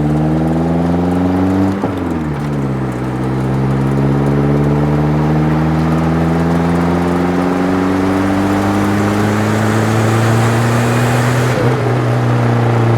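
The 2.3-litre turbocharged four-cylinder of a 1986 Ford Thunderbird Turbo Coupe accelerating hard under raised boost, roughly 22 psi. Its revs climb steadily, drop sharply at a gear change about two seconds in, then climb for a long pull before a second gear change near the end.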